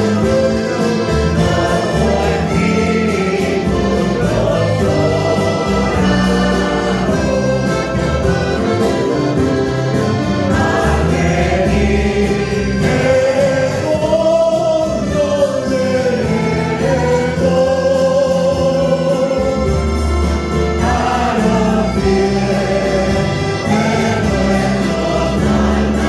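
Church choir singing a Spanish-language hymn, accompanied by strummed acoustic guitars, a mandolin and an accordion.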